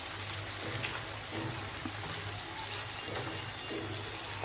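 Diced potatoes, onions and tomatoes sizzling in hot oil in a nonstick kadhai as they are stirred with a spatula: a steady frying hiss.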